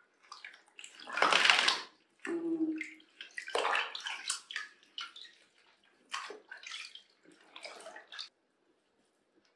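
Water splashing and sloshing in a plastic tub as a wet cat is bathed and washed with a cloth: a run of uneven splashes, the loudest about a second and a half in, dying away shortly before the end.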